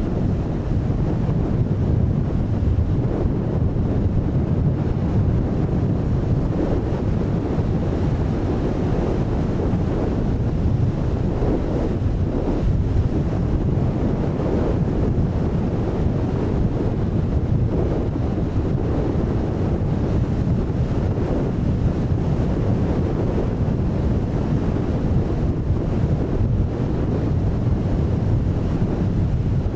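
Strong wind blowing across the microphone over the surf of a rough sea: a steady low rushing noise with no let-up.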